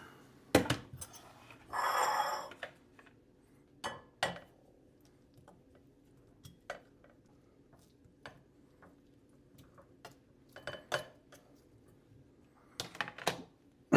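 Scattered clinks and knocks of a serving utensil against dishes as cooked chicken pieces are moved into a bowl, with a brief scraping clatter about two seconds in and a few quick knocks near the end.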